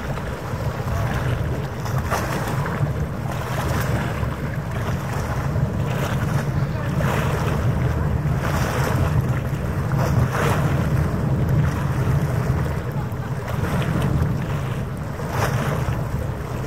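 Wind buffeting the microphone over harbour water lapping at the shore: a steady rushing rumble with brighter splashy surges every couple of seconds.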